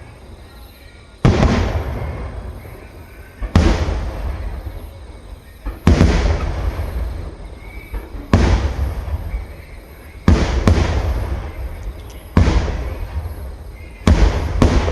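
Aerial firework shells bursting in a steady sequence: seven loud booms about two seconds apart, each trailing off in a long rolling echo.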